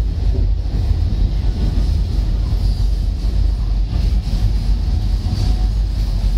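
Steady rumble of a moving Alishan Forest Railway narrow-gauge passenger car, heard from inside the carriage.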